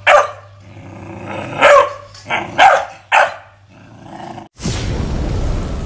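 American Pit Bull Terrier barking, about five sharp barks in the first three seconds, riled up on purpose by its owner. About four and a half seconds in, a loud rushing whoosh of an intro sound effect cuts in.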